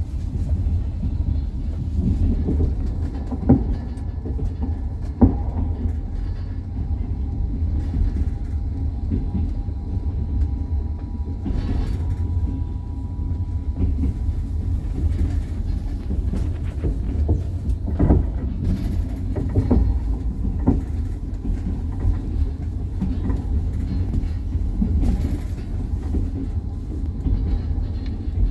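Moving train heard from inside the carriage: a steady low rumble of the wheels on the track, broken by a few sharp knocks of the wheels at irregular intervals.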